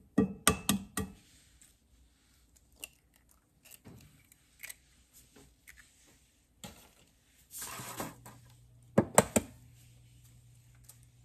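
Eggs being cracked against the edge of a cast-iron skillet: a few sharp shell taps and cracks in the first second, and another quick run of them about nine seconds in.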